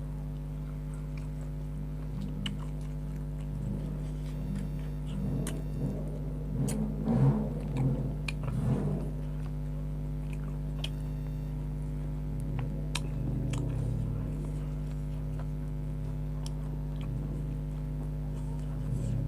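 Close-up mouth sounds of someone eating grilled chicken: chewing with scattered wet clicks, loudest in a stretch from about five to nine seconds in. A steady low electrical hum sits under it.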